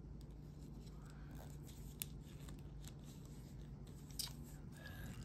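Plastic joints of a Marvel Legends Luke Cage action figure clicking and rubbing as they are worked by hand, with two sharper clicks about two and four seconds in.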